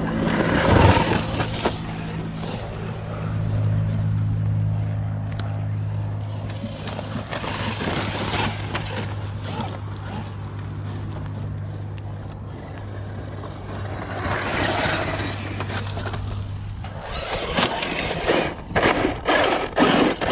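Traxxas UDR 1/7-scale RC desert truck with a brushless motor, driven on 4S over rough, rutted dirt: its motor and tyres on the bumps, heard from the transmitter under a steady low hum, with a quick run of sharp knocks near the end.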